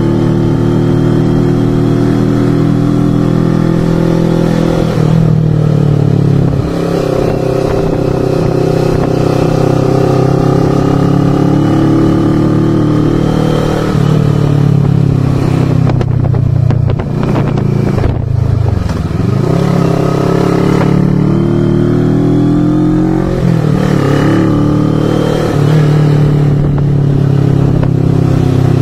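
Onboard sound of a CFMoto GT400's parallel-twin engine under way, the engine note changing pitch as the rider works through the gears: several drops in pitch, a deep dip about two-thirds through, then climbing again.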